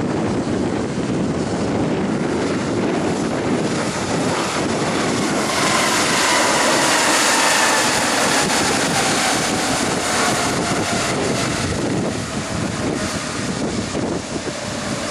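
The GE90 turbofan engines of a Boeing 777-300ER whining and rushing as the airliner rolls past on the ground. The sound swells about six seconds in, and several engine tones slide downward in pitch as it goes by. Gusty wind buffets the microphone.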